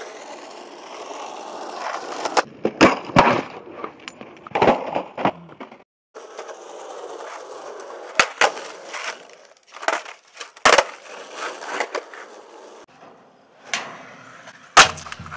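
Skateboard wheels rolling on rough concrete, broken by sharp tail pops, board clacks and landings across several short clips. Music with a bass line and drums comes in near the end.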